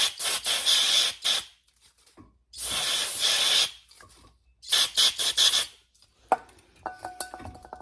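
Aerosol brake cleaner sprayed in three short hissing bursts, each about a second long, into a brake caliper's sliding-pin bore to flush out old dirt. Faint small clicks follow near the end.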